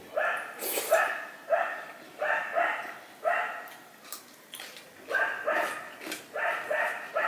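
A dog barking repeatedly, about a dozen short barks in two runs with a brief pause around the middle.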